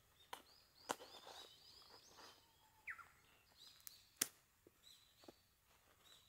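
Faint birdsong in short whistled phrases over quiet outdoor background, with a few sharp clicks and taps from a woven weed-control sheet being handled and pinned down, the loudest about four seconds in.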